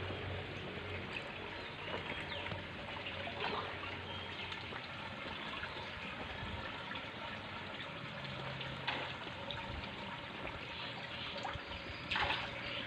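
Water running and splashing steadily as a fish pond is drained, with scattered small splashes.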